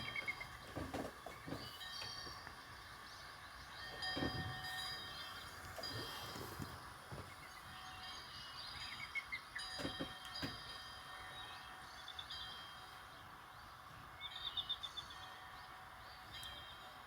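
Samsung Galaxy Star GT-S5282 stock ringtone playing from the phone's small speaker: scattered high chime-like tones and short chirping trills recurring every few seconds over a steady hiss.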